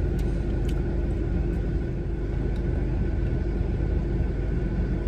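Steady low rumble of a car heard from inside the cabin, with a faint steady hum and a few light clicks.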